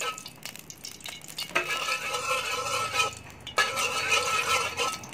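Metal ladle scraping around the inside of a steel wok to spread oil: a few light clinks, then two long ringing scrapes of about a second and a half each.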